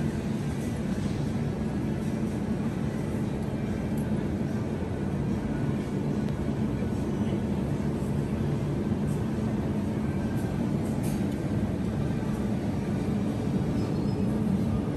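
Steady low hum and rumble of a shop's background noise from air-conditioning and refrigeration, even in level with no distinct events.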